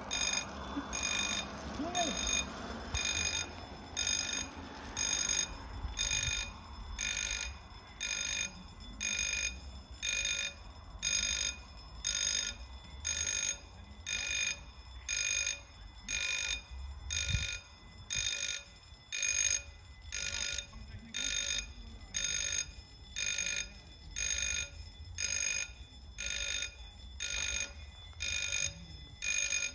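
Electronic warning bell of a German railway level crossing ringing about once a second, each ring a short bell-like tone. The ringing warns that a train is approaching and the crossing is closing.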